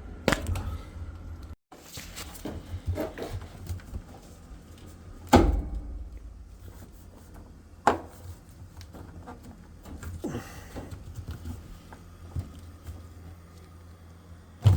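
Handling noises from work on a front-load washer's door boot gasket: scattered clicks and knocks. Sharp knocks come near the start, about five seconds in (the loudest) and about eight seconds in.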